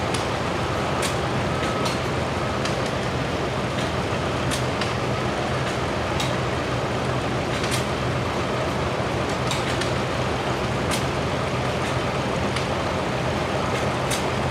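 Vintage tractor engines running in a steady low drone, with sharp clicks scattered irregularly through it.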